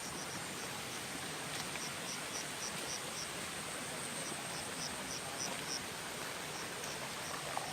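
Night insects chirping: runs of short high pulses, about four a second, each run lasting a couple of seconds with pauses between, over a steady hiss of night ambience.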